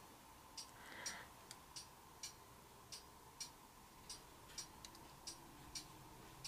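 Acrylic paint dripping off the edges of the poured board onto a plastic drop sheet: faint, sharp, irregular ticks, about two a second, over a faint steady tone.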